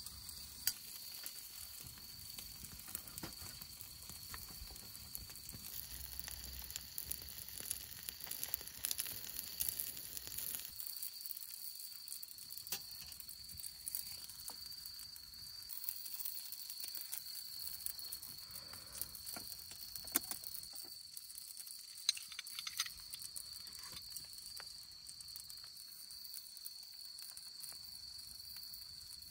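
Pacific saury sizzling on a grill net over a wood campfire, with small crackles and pops.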